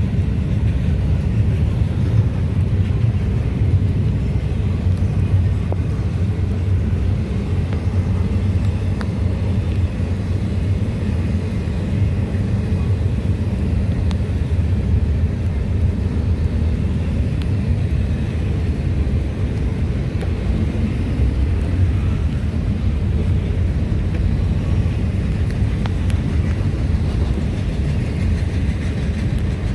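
Norfolk Southern freight train rolling past, a steady low rumble from the passing cars.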